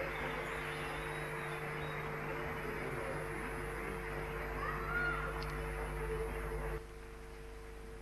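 A faint steady low hum with hiss at the tail end of the song recording, dropping suddenly to a lower level near the end.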